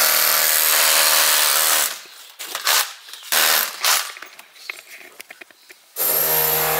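A power tool run by builders working on a brick doorway. It runs steadily for about two seconds, cuts out, gives a few short bursts, then runs steadily again near the end.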